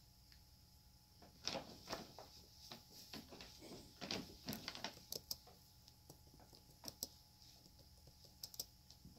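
Paper bag crackling and rustling as cats move inside and against it: a string of short crackles over a few seconds, then a few more near the end.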